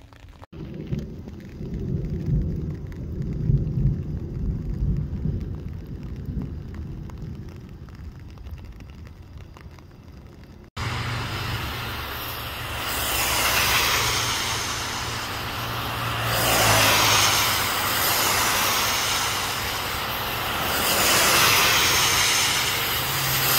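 An uneven low rumble, then from about eleven seconds in, cars driving past on a rain-soaked road: tyres hissing on the wet asphalt, swelling three times as cars go by, over a steady low hum.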